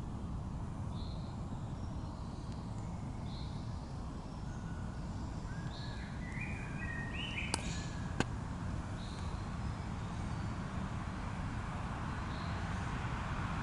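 Small songbirds calling: short high chirps every two or three seconds, and a brief phrase of stepped notes near the middle, over a steady low background rumble. Two sharp clicks come close together just past the middle.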